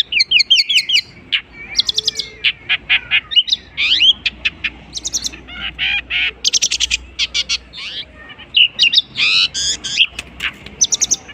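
Long-tailed shrike (cendet) singing a rapid, varied song of chirps, fast trills and sweeping whistled notes, stringing together imitations of other birds' calls.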